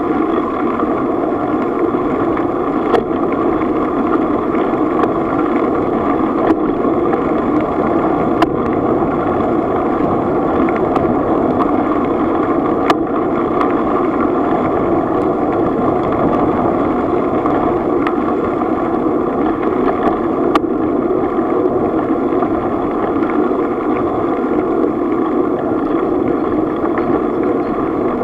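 Steady rolling rumble of bicycle tyres on a gravel path, picked up by a camera mounted on the bike, with a few sharp clicks scattered through it.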